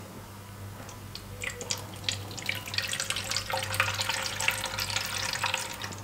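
Water poured from a glass into a humidifier's plastic water tank, a trickling splash that builds from about a second and a half in and stops near the end.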